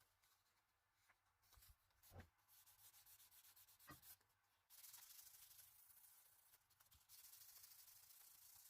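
Faint abrasive rubbing by hand, sanding-like: a quick run of short scratchy strokes, then two long steady scratchy passes.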